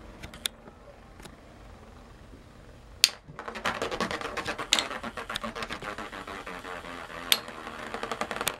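Two Beyblade spinning tops in a plastic stadium: a faint whir with a few light ticks, then a sharp clack about three seconds in, followed by fast continuous rattling and scraping as the tops clash and grind against each other and the stadium.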